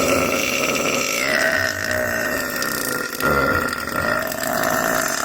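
A woman's long, drawn-out belch that runs on for about five seconds, catching briefly about three seconds in.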